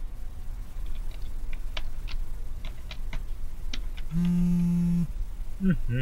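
Scattered keystrokes on a laptop keyboard, then a smartphone on the desk starts buzzing for an incoming call: one buzz of about a second, and a second buzz starting right at the end.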